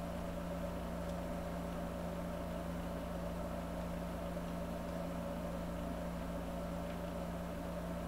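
Steady, unchanging low hum, with a fainter higher tone held above it.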